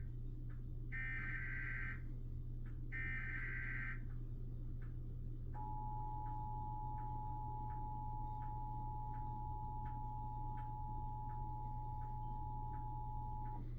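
Emergency Alert System weekly test: the last two of the three digital SAME header bursts, each a second-long warbling data screech about a second apart, then after a short gap the two-tone EAS attention signal, a steady dual tone held about eight seconds and cutting off just before the end.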